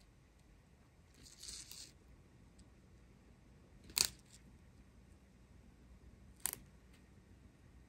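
Small plastic bags of diamond-painting drills being handled: a brief crinkle about a second in, then two sharp clicks about four and six and a half seconds in, the first one the loudest.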